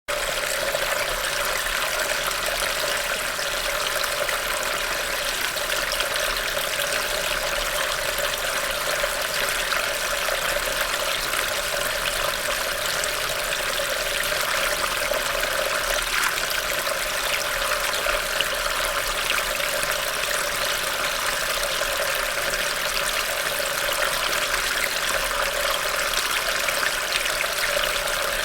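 Rainwater running steadily into a storm drain after rain, a continuous trickling and splashing flow.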